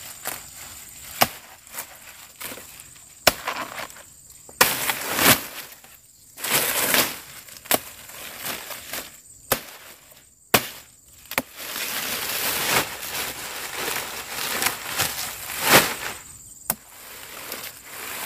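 Machete chopping into a banana plant's soft trunk, with sharp chops at irregular intervals of one to two seconds. Dry banana leaves rustle and crackle between the strokes.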